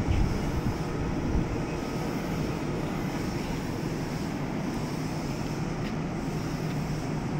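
Kintetsu 2430 series electric train standing at a station platform, its onboard equipment giving a steady low hum and rumble, with a couple of brief knocks within the first second and a half.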